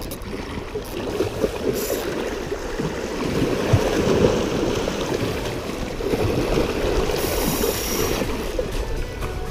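Steady rushing of moving water, with a brief brighter hiss about seven seconds in.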